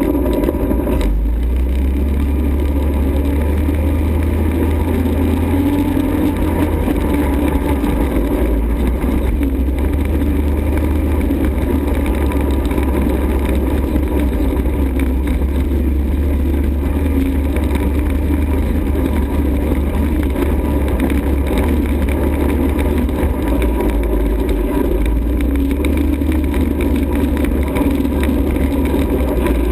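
ATV engine running steadily, with a heavy low rumble underneath.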